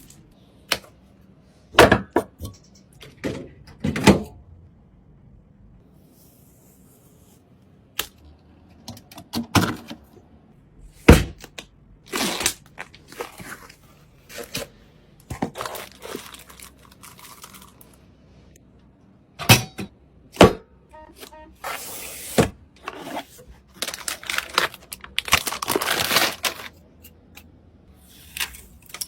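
Computer parts being handled and fitted together: scattered clicks, knocks and thunks, with some rustling, and a few quiet pauses.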